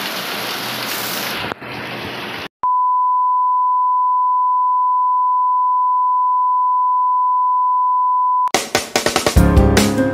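Heavy rain pouring for about the first two and a half seconds, then a short silence and a steady single-pitch test-tone beep held for about six seconds, the tone that goes with colour bars. It cuts off suddenly into outro music with a beat.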